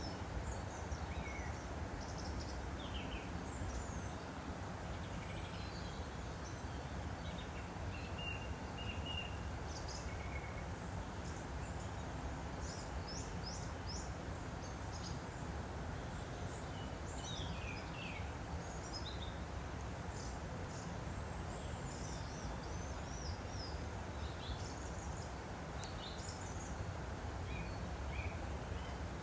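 Woodland stream flowing steadily, with small birds chirping in short, high, scattered calls over the running water.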